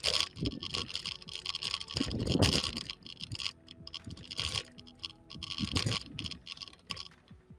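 Irregular scraping and rustling in uneven bursts from walking with a wheeled GNSS rover rod, its all-terrain wheel rolling over a concrete walk.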